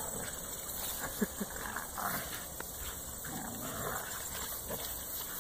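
Puppies making small dog sounds as they play-fight, including two short pitched yips close together a little over a second in.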